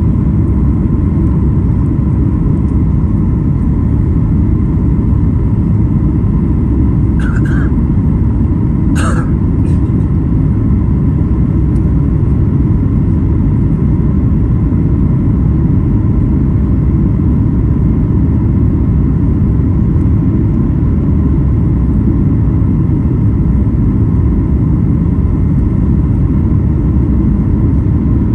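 Cabin noise inside a Boeing 737 MAX 8 airliner heard from a window seat: a steady, loud, low roar of its CFM LEAP-1B engines and airflow. Two brief higher-pitched sounds come about a third of the way in.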